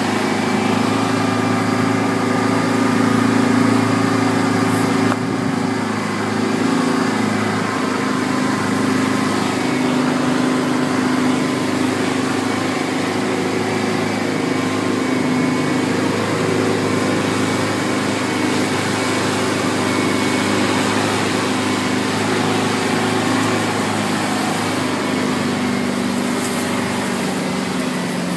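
Four-wheel-drive's engine running steadily, its pitch drifting a little up and down.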